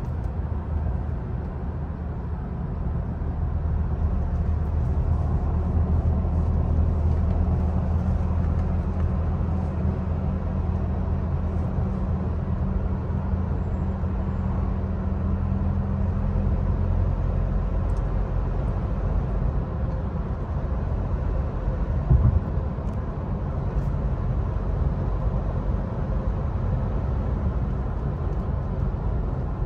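Car engine and road noise heard from inside the cabin while driving, a steady low hum that shifts in tone about halfway through. A brief thump stands out about two-thirds of the way in.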